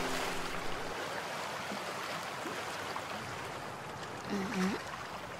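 Steady sound of flowing water, like a stream, as guitar music fades out at the start. About four and a half seconds in comes a brief pitched voice sound, like a short murmur.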